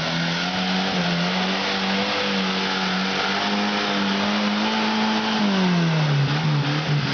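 Small off-road 4x4's engine revving hard under load as it climbs out of a muddy rut, held at high revs, then dropping back about five and a half seconds in.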